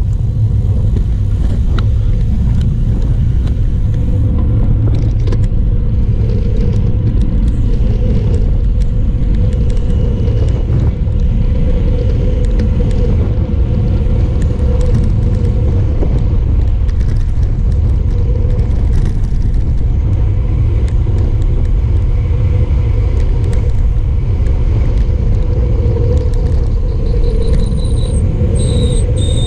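Wind rushing over a bike-mounted action camera's microphone during a fast road-bike descent, a steady low rumble with tyre hum. Near the end a high-pitched squeal comes in, like brakes squealing as the bike slows for a bend.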